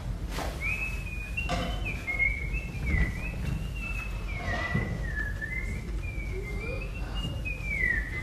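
A boy whistling a wandering tune: one clear note that slides and steps up and down, with no words.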